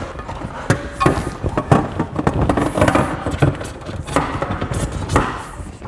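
Irregular clicks, knocks and rubbing as a stringer is worked by hand into place along the aluminium floor panels of a half-inflated PVC inflatable boat.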